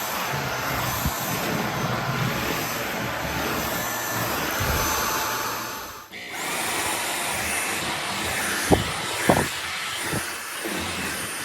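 WnkimTech cordless stick vacuum cleaner running steadily, its motor noise and airflow hiss. About six seconds in the sound briefly sinks away and comes back, and two short knocks are heard near the end.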